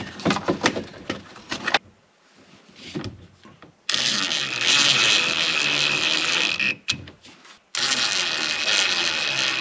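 Power drill driving screws, its motor running steadily in two long runs of about three and two seconds, after a few clatters of handling at the start.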